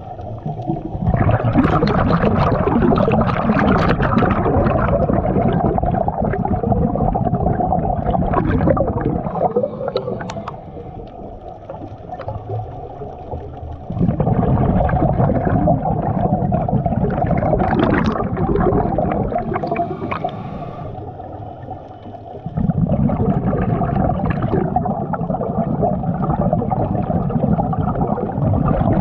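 Scuba diver's exhaled air bubbling out of the regulator beside a head-mounted camera housing underwater: three long stretches of loud gurgling bubbles with quieter pauses between, as the diver breathes in.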